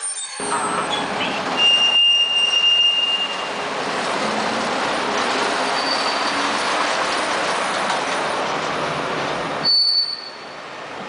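SBB Re 4/4 electric locomotive and InterRegio coaches passing close by, steel wheels rumbling on the rails. A high-pitched wheel squeal rings out for about two seconds early on and briefly twice more. The noise drops off sharply near the end.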